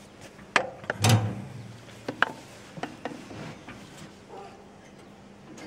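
Scattered knocks and clunks, the loudest about a second in, as a hammer handle is worked against the starter button of a 1950 Oliver Cletrac crawler tractor.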